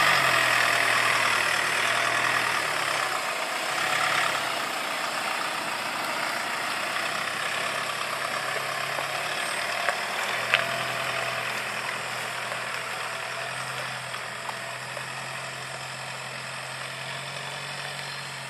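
Ford Ranger Raptor pickup's engine running at low speed as the truck drives slowly past and away, a steady low hum over a steady hiss, with a couple of sharp clicks about ten seconds in.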